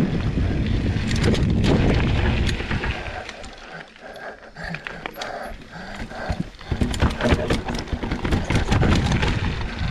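Mountain bike riding down rough trail steps: tyres rumbling on dirt, then a quieter moment about four seconds in, followed by a run of clattering knocks as the bike bumps down the steps.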